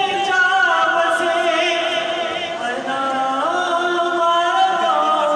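A man singing unaccompanied into a handheld microphone, long drawn-out notes that slide between pitches with vibrato.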